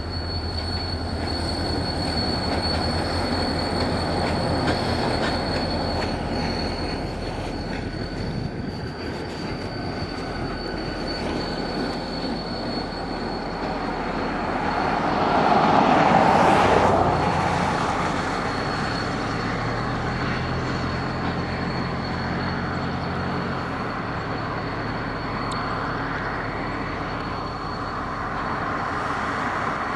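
Two diesel locomotives, one of them an EMD GP40, running as a light engine move with a steady engine drone. A thin, high wheel-flange squeal sounds as they take the curve. The sound swells to its loudest about halfway through, then eases.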